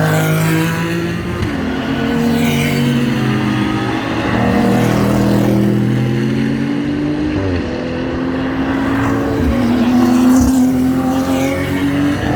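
Several GT3 race cars passing one after another at high revs, their engine notes overlapping, with the pitch dropping as each one goes by.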